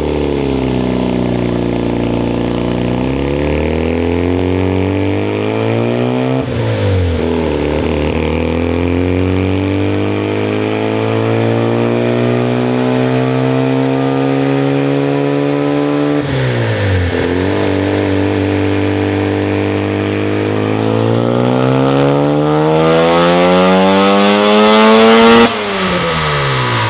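Mazda RX-7 FD's twin-turbo 13B rotary engine under full load on a chassis dyno, heard from behind its 3-inch exhaust. Its pitch climbs in long sweeps, dropping sharply about six and sixteen seconds in, and after its loudest point the throttle closes near the end and the pitch falls away.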